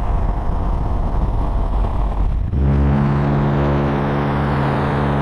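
Light propeller aircraft at takeoff power: a loud, noisy rumble during the takeoff roll. About halfway through, after a short dip, it gives way to a steady engine and propeller drone with a strong low hum as the plane climbs.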